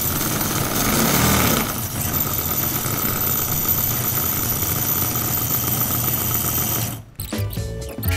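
Toyan miniature V8 glow engine running on methanol with a shot of nitrous oxide, a fast, steady mechanical buzz. It cuts off about seven seconds in, and background music begins near the end.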